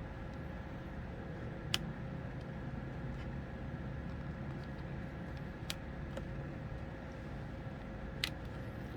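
Steady low background hum with three small, sharp clicks: one about two seconds in, one near six seconds and one near the end. These are typical of small tools or laptop parts being handled.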